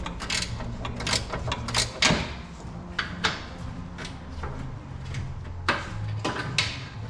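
Metal tools knocking and clicking against the car's front suspension and body, a string of sharp, irregular clanks with a steady low hum behind.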